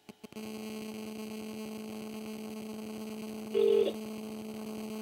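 A mobile phone on 2G (GSM) places a call, and its radio bleeds into the audio as a steady electrical buzz of about 217 Hz. The buzz starts right after the last keypress clicks, about a third of a second in. A little past halfway one short ringing-tone beep sounds over it.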